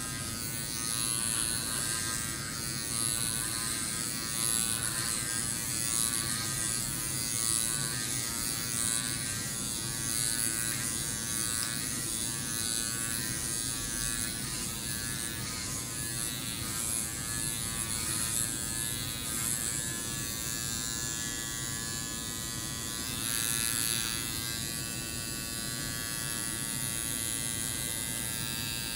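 Electric hair clipper buzzing steadily as it cuts through thick hair, its level swelling a little each time the blade passes into the hair.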